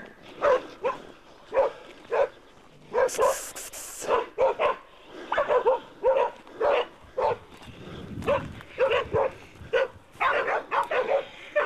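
Pig-hunting dogs barking in a rapid, irregular string of short barks as they hold a wild boar at bay. A brief hiss comes in about three seconds in.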